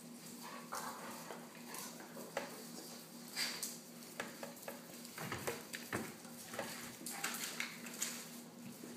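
A litter of pit bull puppies and their mother scrabbling and scuffling on a concrete floor: many short, irregular claw clicks and scrapes, over a steady low hum.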